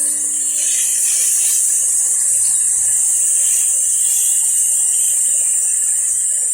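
High-pressure water jet washer spraying: a loud, steady, high-pitched hiss of the jet.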